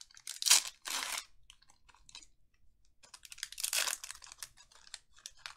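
A 2020 Panini Mosaic football card pack's wrapper being crinkled and torn open by hand. Two short bursts come near the start and a longer, louder stretch of tearing about three and a half seconds in, with small clicks between.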